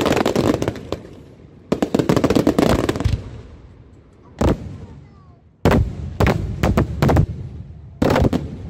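Fireworks display: aerial shells bursting in rapid volleys of sharp bangs and crackle. A lone bang comes in a lull near the middle, then a fresh run of heavy bangs toward the end.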